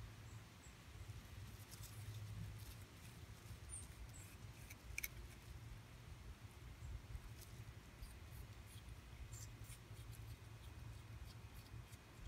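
Opossum chewing a piece of apple: faint scattered smacking clicks, the loudest about five seconds in, over a low steady rumble.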